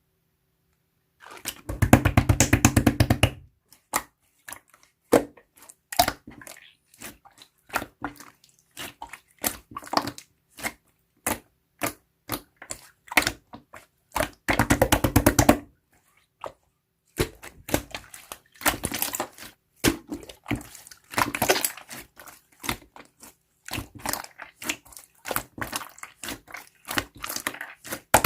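Slime being squished and poked by hand, making bursts of rapid crackling and popping clicks.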